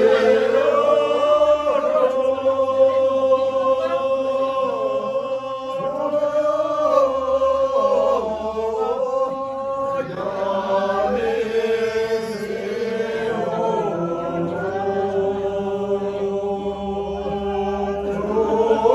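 A group of Sherpa men and women singing the slow opening verse of a shyabru dance song in unison, without instruments, drawing out long held notes that step to new pitches every few seconds.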